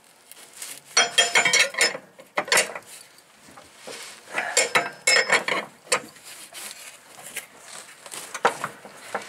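Box-end wrench working the blade nut on a riding mower deck's spindle: bursts of metal clinking and rattling against the steel blade, loudest about a second in and again about five seconds in.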